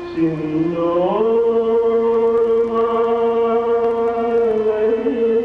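Live Carnatic vocal accompaniment to Bharatanatyam dance: a singer slides up in pitch about a second in, then holds one long note that wavers slightly near the end.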